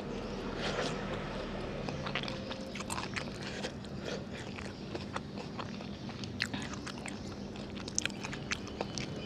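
Close-up eating sounds: chewing and biting of saucy fried noodles and chicken on the bone, with scattered sharp clicks.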